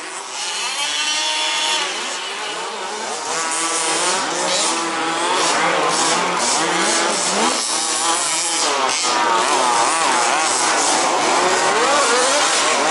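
Several remote-control racing buggies' motors whining together, each rising and falling in pitch as the cars accelerate and slow around the track.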